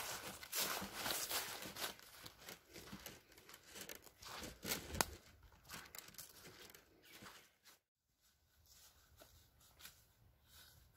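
Footsteps crunching and rustling through dry fallen leaves, irregular, with the sharpest crunch about five seconds in. The sound breaks off completely about eight seconds in, leaving only faint rustling.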